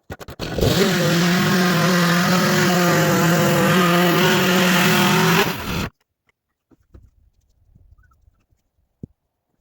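Two-stroke chainsaw running at a steady high speed, beginning with a few quick sputters and stopping abruptly after about five seconds.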